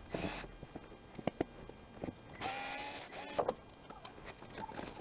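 A cordless electric screwdriver whirs in two short bursts, one at the start and a longer one of about a second midway, backing out the screws of a string trimmer's front housing. Light clicks and knocks of the screws and parts being handled come in between.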